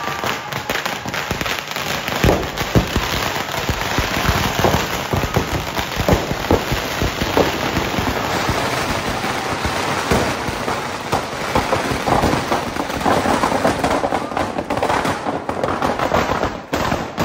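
Strings of firecrackers and larger gola bombs packed into a Ravan effigy going off in a rapid, unbroken crackle of bangs, with a few louder blasts among them.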